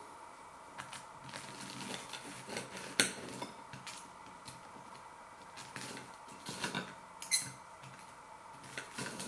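Knife and fork scraping and clinking against a plate while cutting through a puffed-quinoa-coated vegetable burger. There is a sharp clink about three seconds in and a few more near the end.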